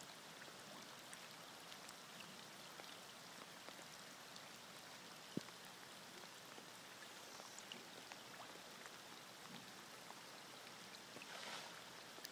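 Faint, steady patter and trickle of water from the floodwater, with a single sharp click about five seconds in and a brief hiss near the end.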